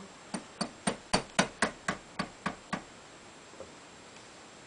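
A mallet tapping a small nail used as a drift to push a pin out of a side-by-side shotgun action held in a vise. About ten quick, sharp taps at roughly four a second, which stop a little under three seconds in.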